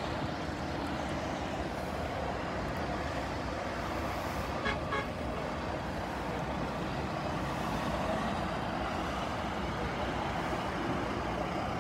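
Steady rumble of heavy vehicles running, with a short horn toot about five seconds in.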